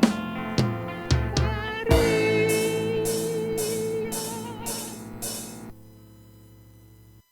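Final bars of a rock song on drums and guitar: a few drum hits lead into a long held final chord with a wavering note on top and a run of about six cymbal crashes. The chord dies away and cuts off suddenly near the end.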